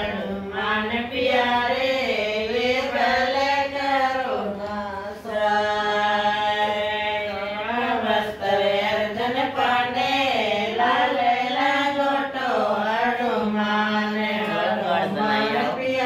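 A woman singing a folk song (geet) without instruments, in a chant-like melody with long held, wavering notes.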